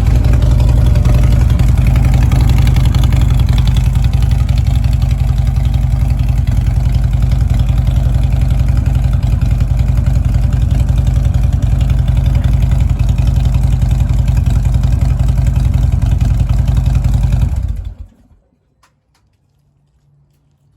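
Harley-Davidson Road Glide Special's V-twin engine idling steadily, then shut off about 18 seconds in.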